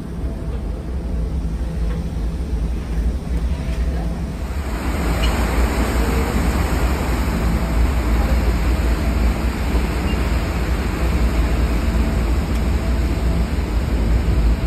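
Fast ferry's engines droning low and steady. From about four and a half seconds in, a loud rushing hiss of water churned up by its propulsion as it manoeuvres against the berth.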